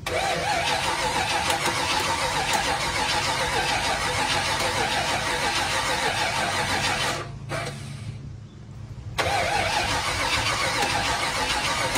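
Ford 302 V8 swapped into a 1987 Ford Ranger, cranked over from cold and starting up. About seven seconds in, its sound drops away for roughly two seconds, then comes back as loud as before.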